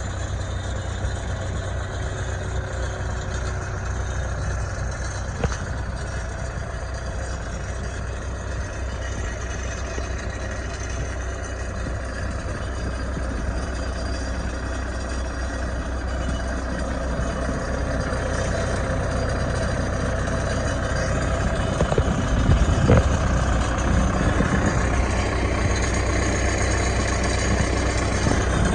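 New Holland 555E backhoe loader's diesel engine running steadily at idle, growing somewhat louder in the second half, with a few short knocks near the end.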